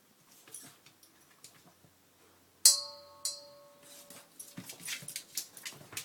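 A metal object clinks twice, about half a second apart, each strike ringing briefly, followed by a quick run of light clicks and taps.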